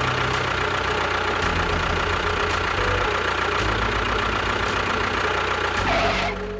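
Engine running steadily at idle, with a low pulsing knock and a hiss and a thin high whine over it.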